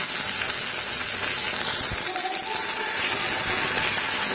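Chopped onions, green chillies and freshly added ginger-garlic paste sizzling steadily in hot oil in a frying pan.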